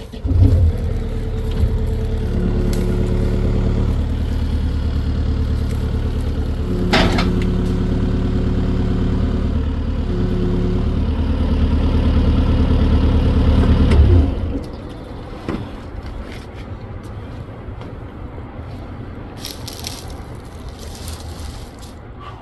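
Kit-built clone two-stroke chainsaw running hard at full throttle in a cut, its steady pitch dipping and recovering as the load changes. It stops abruptly about 14 seconds in, leaving quieter rustling with scattered cracks and clicks.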